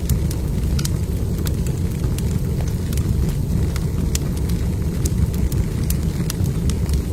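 Wood fire burning in a fireplace: a steady low rumble of flame with frequent, irregular sharp crackles and pops from the burning logs.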